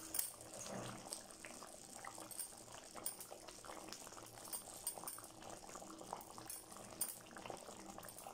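Thick tamarind-and-masala gravy bubbling at the boil in an open kadai: many small irregular pops and blips, a few of them louder.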